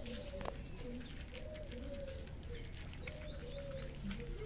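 Pigeons cooing, a string of short low rounded calls one after another, with a few faint high chirps from small birds.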